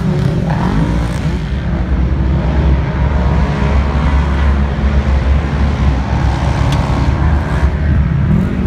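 Racing UTV side-by-side engines running and revving as several cars pass on a dirt track, the engine pitch rising and falling.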